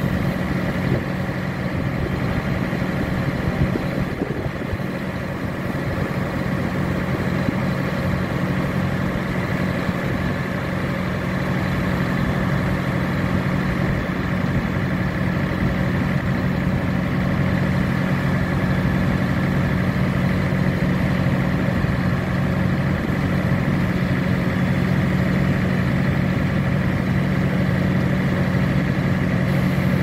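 Diesel engine of a Mercedes-Benz truck-mounted concrete pump running steadily, with a steady high whine above the engine note, growing a little louder over the first dozen seconds.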